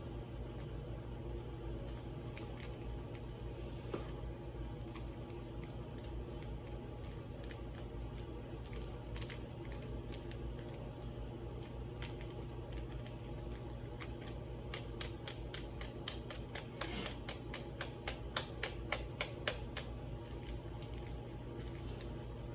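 Small hand-handling sounds of a glitter pouch being opened and emptied into a plastic snow globe: scattered light clicks, then a run of sharp taps, about three a second for some five seconds in the second half, over a steady low hum.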